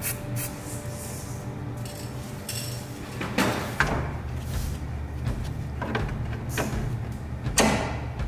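Several short metallic knocks and scrapes as a lower suspension ball joint stud is fitted up into the steering knuckle. The loudest come about three and a half seconds in and near the end.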